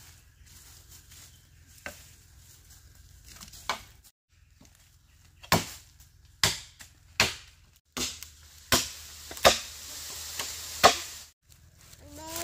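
Repeated chopping with a blade: sharp single strikes, roughly one a second, louder in the second half.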